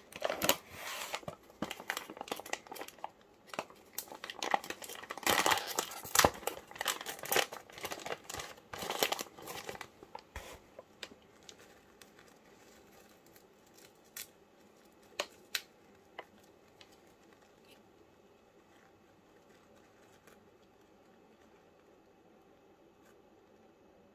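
Crinkly packaging being handled, dense crinkling and rustling for about ten seconds, then a few scattered clicks and quiet.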